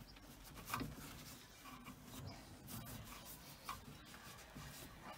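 Faint rubbing of a cloth wiping over steel hydraulic quick-release fittings, with two light clicks, one under a second in and one near the end.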